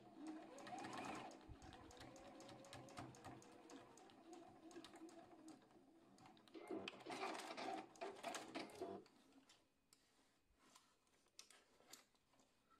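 Domestic electric sewing machine stitching a seam: motor hum with rapid needle strokes, loudest about seven to nine seconds in. It stops about nine seconds in, leaving only a few light clicks.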